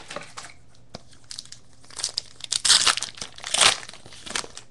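Wrapper of a baseball card pack crinkling and tearing as it is ripped open, in several loud bursts through the second half. Light clicks of cards being set down on a pile come first.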